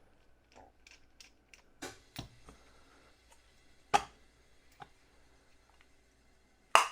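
Light clicks and knocks of tools and a part being handled on a workbench, with two sharper knocks, one about halfway through and one near the end.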